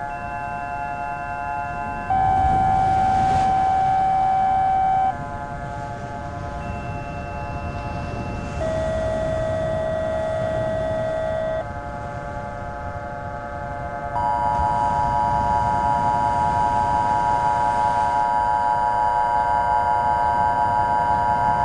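Electronic emergency-alert tones: a held drone of several steady tones over a low rumble. A louder held tone sounds over it about two seconds in for three seconds, a lower one from about eight and a half seconds for three seconds, and from about fourteen seconds a louder, brighter tone chord sounds steadily to the end.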